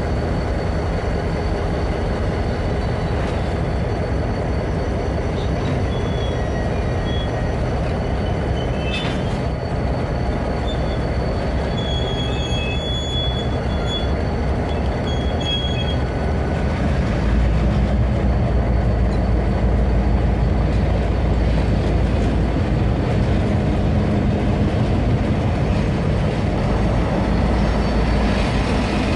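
EMD diesel-electric locomotives running slowly close by, a steady deep engine rumble that grows louder a little past halfway. A few brief high-pitched squeals come through in the middle.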